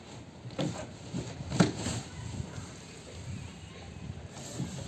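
Large cardboard carton being lifted off an air-conditioner outdoor unit: cardboard rubbing and several knocks, the sharpest about one and a half seconds in.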